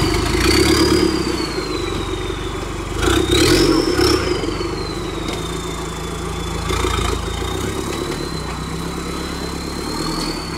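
Modified off-road jeep's engine running at low speed as it crawls over rough ground, with a short burst of revs about three seconds in and a smaller one near seven seconds. A high whine rises and falls in pitch along with it.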